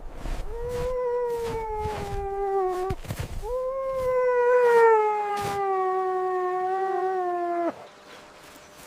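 Canine howling: two long, steady howls, each sliding slowly down in pitch. The second is longer and cuts off abruptly near the end.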